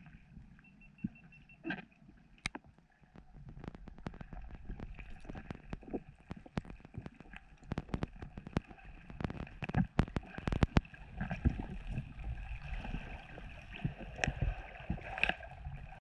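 Water gurgling and irregular sharp clicks and ticks, heard muffled through an underwater camera's housing while freediving in a cenote.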